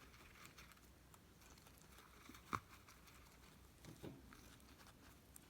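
Faint crunching and rustling of a guinea pig eating a nature salad, with small crisp clicks and one sharper click about two and a half seconds in.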